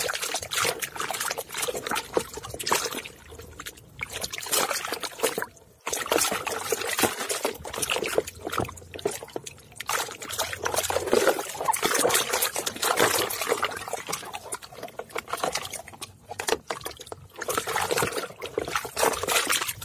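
Muddy water sloshing and splashing in a tub as a hand scrubs a mud-caked plastic toy mask, in irregular strokes with a few short pauses.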